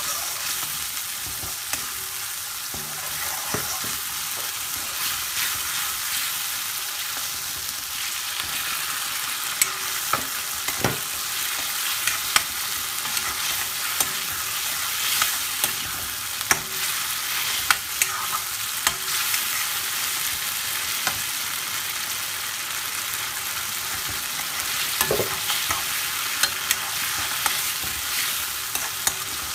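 Spiced tomato curry paste sizzling and frying in a karahi wok, stirred with a spoon that scrapes and knocks against the pan. A steady hiss runs throughout, with scattered sharp clicks from the spoon hitting the pan.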